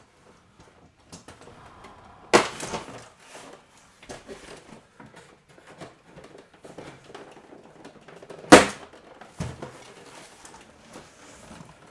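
Wire cutters snipping through a toy box's packaging ties: two sharp, loud snaps about six seconds apart, with quiet rustling and handling of the packaging between them.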